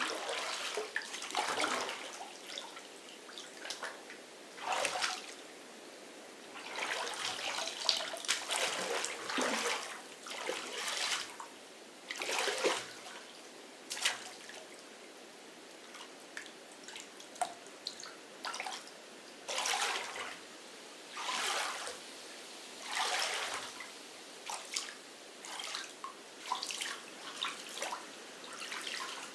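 Water splashing and trickling in irregular swells about a second long, with drips between them.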